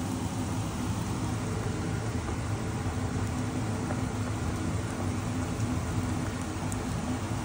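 Steady stovetop cooking noise: turkey strips and bell peppers sizzling in a frying pan and a pot of Spätzle boiling, over a low steady hum.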